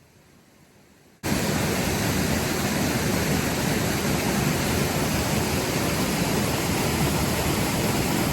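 Waterfall's falling water rushing in a steady, loud, even wash of noise that cuts in abruptly about a second in, after a faint hiss.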